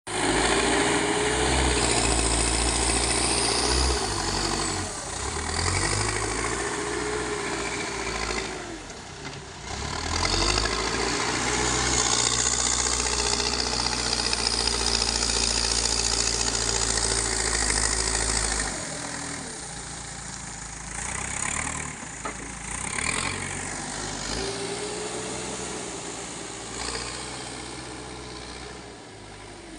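Backhoe loader's diesel engine working, its pitch rising and falling over a few seconds at a time as the machine is loaded and eased off. It is louder for roughly the first two-thirds, then settles lower toward the end.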